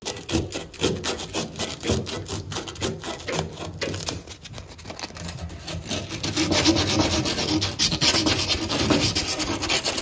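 Plumber's sand cloth scrubbed quickly back and forth around the end of a copper water pipe, a rapid rasping rub that gets louder and faster in the second half. The copper is being cleaned bright before soldering.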